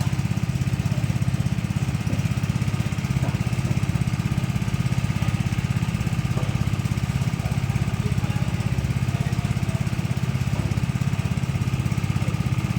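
Small engine-driven machine running steadily at a constant speed, with a fast, even engine beat that does not change.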